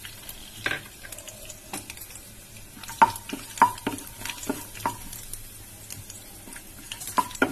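Cashew nuts frying in a little ghee in a nonstick kadai, stirred with a wooden spatula: a faint sizzle under a run of sharp taps and scrapes of the spatula against the pan, loudest about three seconds in and again near the end.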